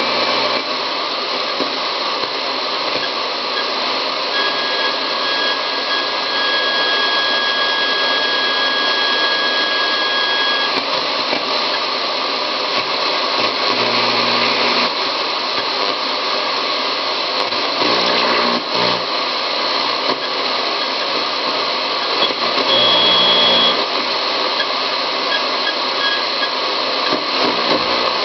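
Radio static: a steady hiss with no voice. A thin whistling tone comes in about four seconds in and stops about seven seconds later, and a few short tones follow later on.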